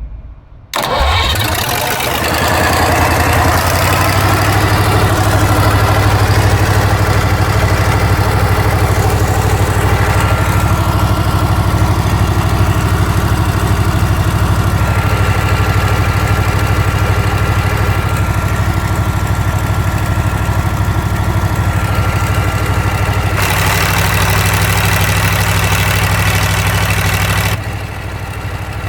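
Perkins V8 diesel engine of a 95 kVA standby generator set starting up about a second in, then running steadily at a constant governed speed.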